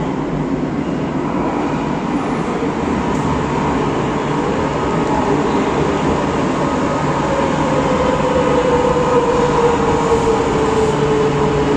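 Madrid Metro Line 6 train running, a steady rumble and rail noise. From about eight seconds in, a whine slides gradually down in pitch.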